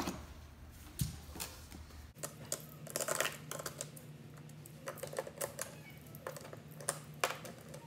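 Small toy trains clicking and clattering as they are picked up and set down, an irregular run of light clicks.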